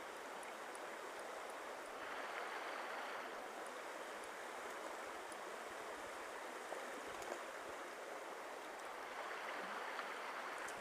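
Steady rush of a shallow mountain stream flowing over rocks, swelling slightly a couple of times, with a few faint light clicks.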